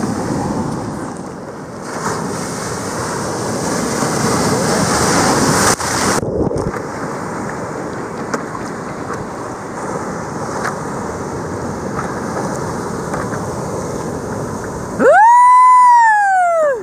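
Wind buffeting the microphone over rushing sea and surf, filmed at water level. Near the end a loud, high-pitched call rises and falls over about two seconds, the loudest sound here.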